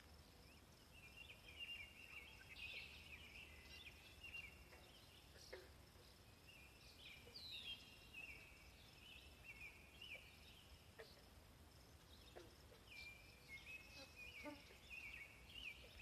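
Faint chorus of small birds chirping and trilling, many short high notes overlapping one another, over a thin steady high hum.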